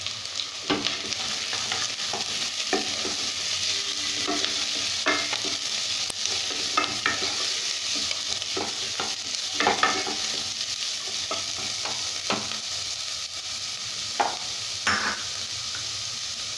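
Carrot strips, onion, garlic and ginger sizzling in oil in a nonstick pan while a wooden spatula stirs them, with irregular scrapes and knocks of the spatula against the pan over a steady sizzle.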